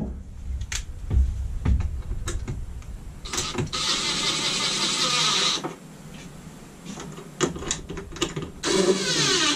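Cordless drill/driver running in two bursts as it drives fasteners at the rooftop air conditioner's ceiling opening: a steady whir of about two seconds, then a shorter one near the end, with a few handling knocks before the first.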